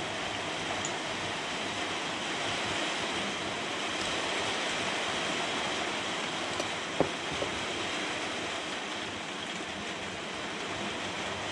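Steady rushing of rain and sleet drumming on the workshop roof, with a few faint clicks of small chainsaw parts being handled about two-thirds of the way through.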